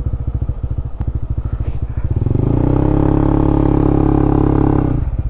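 Honda CB150X's single-cylinder engine idling, then revving up about two seconds in and holding higher revs for a couple of seconds before dropping back near the end.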